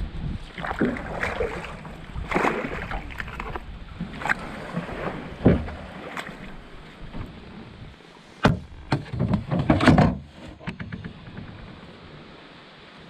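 A canoe being paddled: paddles pulling through the water with splashing swishes, and a cluster of sharp knocks in the second half.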